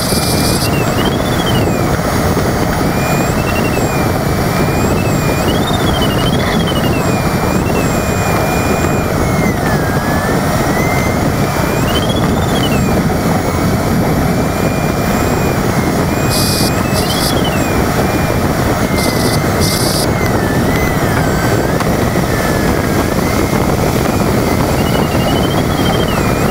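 Steady rush of airflow inside the cockpit of an LS4B glider in flight, with the electronic variometer's tone gliding up and down in pitch as the glider meets lift and sink. A few short, high electronic bursts come about two-thirds of the way in.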